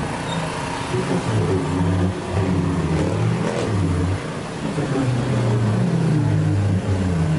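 Small pickup truck's engine running as it drives past close by.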